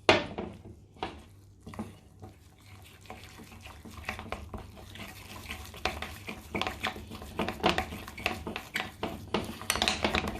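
A spoon stirring thin flour-and-spice batter in a bowl, clinking against the bowl over and over, the strokes quickening and getting louder toward the end. A single sharp knock right at the start.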